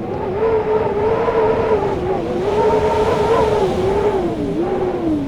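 Blizzard wind howling: a wavering, moaning tone that rises and falls over a steady rush of blowing air, sinking lower near the end.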